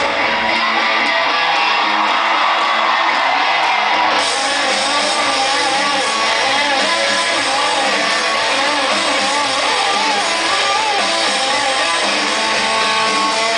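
Live rock band in an instrumental break: electric guitar plays a wavering lead line, and the low end of the band fills back in about four seconds in.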